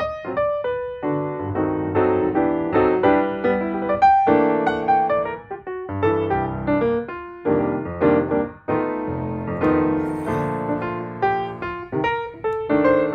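Background music played on piano or electric piano, a lively run of notes with short pauses.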